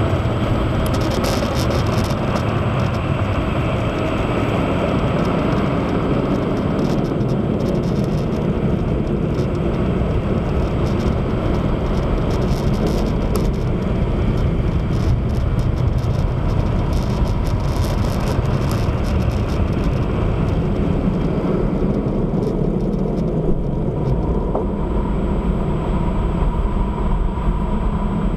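Steady loud rush of a car wash's air dryer blowers, heard from inside the car as it rolls slowly out of the tunnel exit, with a faint crackle through roughly the first two-thirds.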